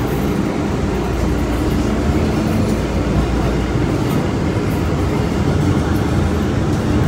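MBTA Green Line light-rail train running along the track, heard from on board as a steady rumble of wheels on rails with a faint steady motor tone.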